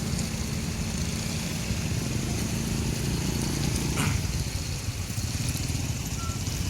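A motor vehicle's engine running steadily at low revs in queued traffic, with a single short click about four seconds in.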